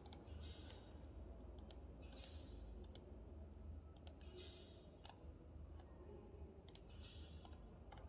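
Faint computer mouse clicks at irregular intervals, roughly one every half second to second, over a steady low hum.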